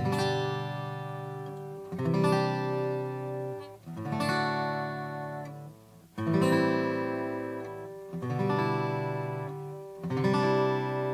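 Acoustic guitar strumming through a chord progression, one chord about every two seconds, each left to ring and fade before the next.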